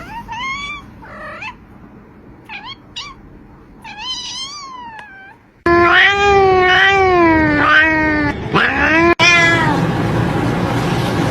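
Cats meowing. First come several short, faint, high meows. A little past halfway, louder, drawn-out, wavering meows take over.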